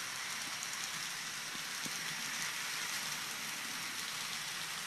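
Steady faint hiss with a few light ticks: an N scale model passenger train, pulled by three U30CG locomotives, running along the layout's track.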